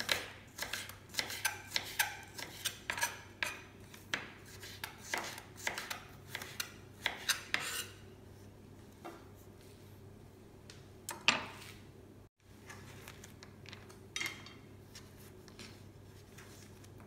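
Kitchen knife slicing carrot into matchstick strips on a wooden cutting board: sharp taps of the blade on the board about twice a second, stopping about eight seconds in, followed by a few isolated knocks.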